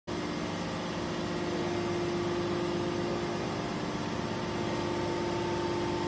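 315-ton hydraulic metal scrap baler running, its power unit giving a steady hum with a constant low tone over mechanical noise.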